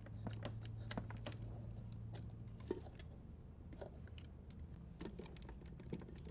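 Faint, irregular clicks and taps of fingers handling wires and plastic connectors at a fuse block, over a faint low hum that fades about halfway through.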